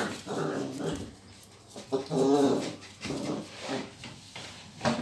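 Border collie puppy barking at a lemon in a series of short yaps, with one longer drawn-out call about two seconds in and a sharp bark near the end.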